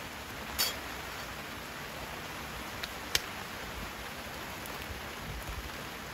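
Steady hiss of rain on wet ground around a burning wood fire, with a few sharp snaps, the loudest about three seconds in.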